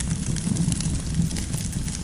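Campfire burning, the wood crackling with scattered small sharp pops over a low, steady rumble.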